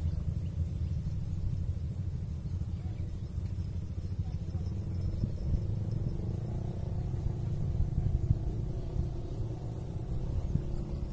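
Low, fluctuating rumble of wind buffeting the microphone.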